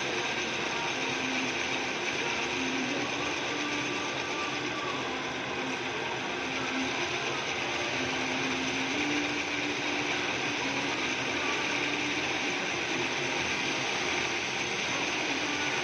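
Drill press running steadily, its bit boring a hole in metal: a continuous mechanical whir with a low hum that wavers in and out.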